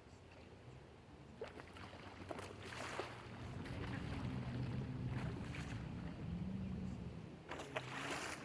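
A low engine hum, wavering slightly in pitch, swells about three seconds in and eases off near the end, with a few short sharp noises scattered through it.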